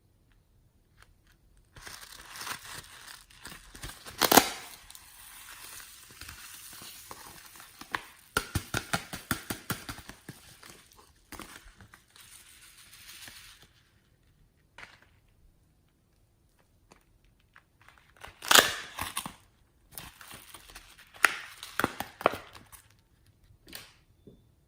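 Hands crushing and crinkling slime-mixing materials: bursts of crackling and crinkling with rapid runs of clicks, broken by quiet gaps. There is a sharp loud clack about four seconds in and another a little past halfway.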